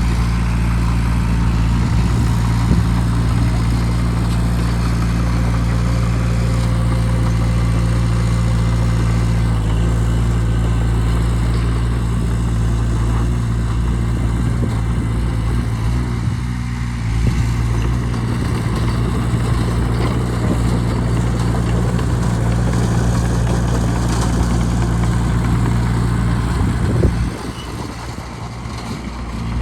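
Bulldozer's diesel engine running steadily under load, a deep even drone that dips briefly about halfway through and drops suddenly to a lower level near the end.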